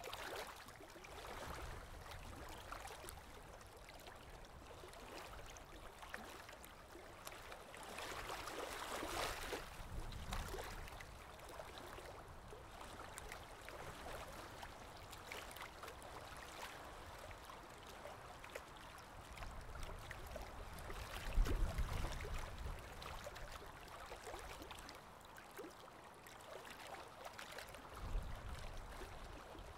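Faint, steady rushing-water ambience that swells and fades now and then, with a low rumble about two-thirds of the way in and another near the end.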